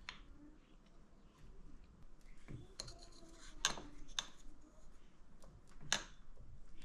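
A few scattered light clicks and taps, about four of them, from small metal parts and tools being handled on a workbench.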